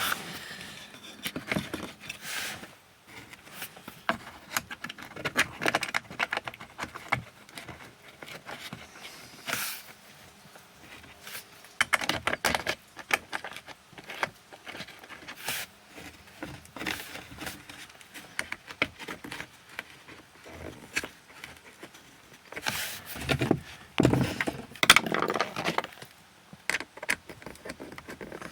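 Irregular small clicks, clinks and rustling from hands working on car speaker wiring and plastic trim, with louder clusters of rattling about twelve seconds in and again near the end.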